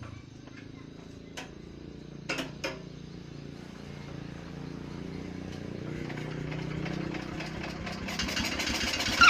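Forklift engine running with a low, steady hum that grows gradually louder, with a few sharp clicks about two seconds in. Right at the end, a loud, rapidly pulsing high squeal sets in: the strange noise from the forklift.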